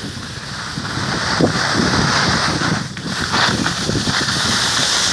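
Wind rushing over the microphone of a camera carried by a moving skier, mixed with skis scraping and hissing over the snow, dipping briefly about three seconds in.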